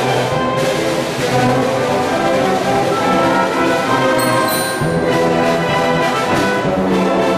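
Full school orchestra playing: bowed violins, cellos and double basses with brass and woodwinds in sustained chords. The bass line grows stronger about five seconds in.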